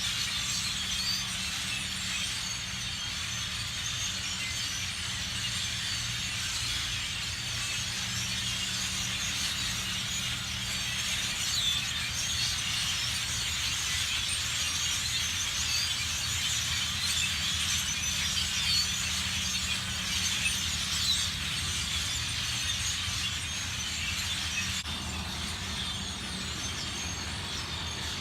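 A huge flock of birds settling into a roost, thousands of voices chattering and squeaking at once in a dense, unbroken din. A steady low hum runs underneath.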